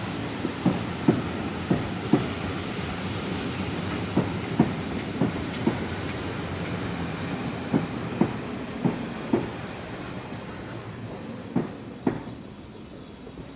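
Railway carriages rolling past on the track: sharp wheel clicks in close pairs as each bogie crosses a rail joint, over a steady rolling rumble. The rumble fades away near the end as the last carriage goes by.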